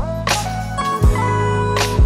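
Background music with a steady drum beat over sustained notes.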